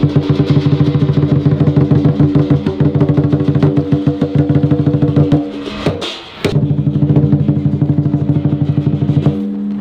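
Chinese lion dance drum beaten in a fast, steady roll over a ringing accompaniment. It breaks off briefly a little past halfway, then comes back in with a sharp crash and keeps going.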